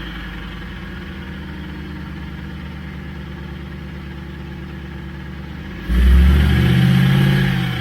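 Engine running with both drive shafts removed, turning an NP231 transfer case; about six seconds in it is revved, louder and deeper, then eases back near the end. The owner hears the whine at this point as plainly coming from the transfer case.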